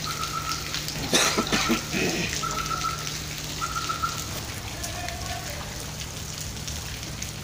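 Steady rain falling on wet ground, with a brief loud burst of voices about a second in and a few short, high-pitched tones, each about half a second long, in the first few seconds.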